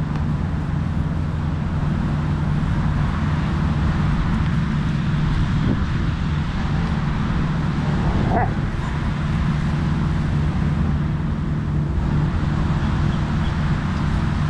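Steady low rumble of road traffic, with a springer spaniel giving two short vocal sounds, about six and eight seconds in, while it tugs on a toy.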